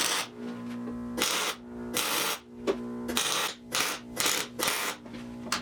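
Background music holding a steady chord, cut across by about eight short bursts of hiss, each a few tenths of a second long.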